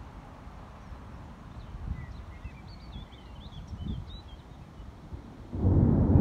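Low background rumble with a few short bird chirps, then a clap of thunder breaks in suddenly and loud near the end and carries on rumbling.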